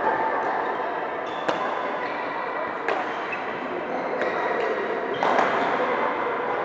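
Badminton rackets striking a shuttlecock in rallies: several sharp strokes about a second or so apart, over a steady background of noise from the many players on the courts.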